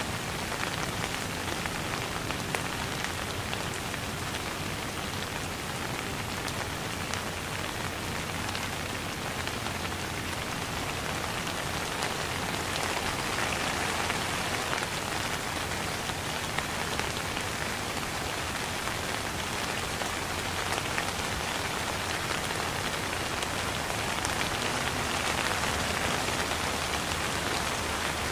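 Steady heavy rain: a dense patter of drops over an even hiss, growing a little louder twice, in the middle and near the end.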